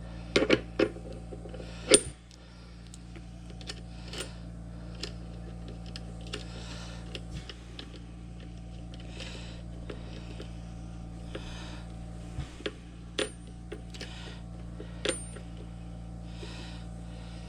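Metal parts and hand tools clinking and knocking as the key machine is reassembled: a quick cluster of clinks at the start, the sharpest knock about two seconds in, then scattered lighter taps, over a steady low hum.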